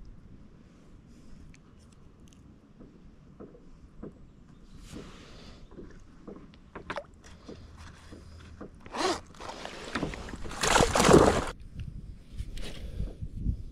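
Knocks, clicks and scraping of gear being handled aboard a fishing kayak, with a loud rasping rush near the end.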